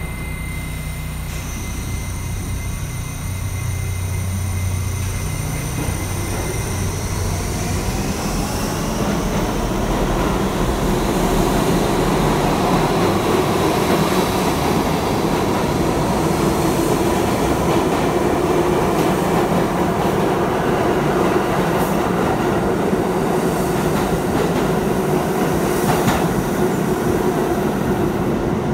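R68 subway train departing: a steady hum at first, then from about seven seconds in a whine rising in pitch as the train picks up speed. It gives way to a steady rumble of wheels on rail as the cars pass, with a few sharp clicks near the end.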